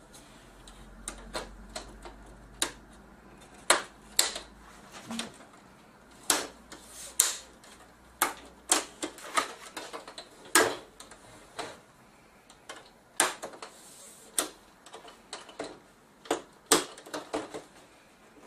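Plastic retaining clips on an LG LC320WXN LCD panel's plastic frame clicking and snapping as they are prised open one after another with a plastic pry tool. The clicks are sharp and irregular, one or more every second, with a few louder snaps among them.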